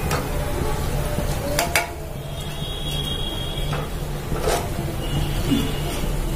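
A metal slotted ladle scrapes and clinks against an aluminium kadhai as fried urad dal vadas are lifted out of hot oil, with a few sharp clinks, over the sizzle of the frying oil.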